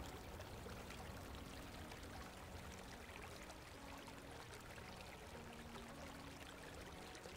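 Faint flowing and splashing water of a shallow river as a herd of Roosevelt elk wades across it.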